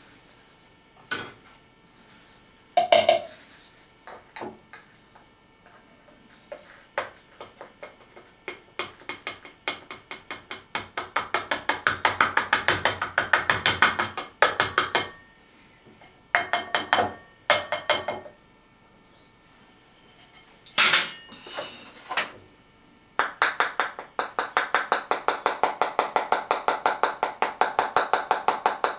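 Light, rapid tapping on a small jar as powdered rosin is knocked down into it, in long runs of several even taps a second with a few single louder knocks between.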